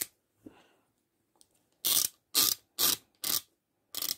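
A 1/2-inch ratchet clicking as it turns the spindle of a YATO YT-0605 coil spring compressor through a 21 mm socket and extension. After a single click at the start, about five short rattling bursts of clicks come roughly two a second, starting about two seconds in.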